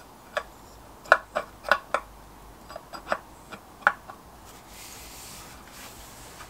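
Brass gear hub being fitted by hand onto the shaft of a lathe power feed unit: an irregular run of sharp metallic clicks and taps, about a dozen over three seconds, then a faint soft hiss.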